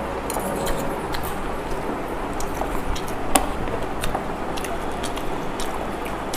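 Metal forks clicking and scraping against metal plates as noodles are twirled and eaten, a few scattered clicks over a steady background noise; the sharpest click comes about three and a half seconds in.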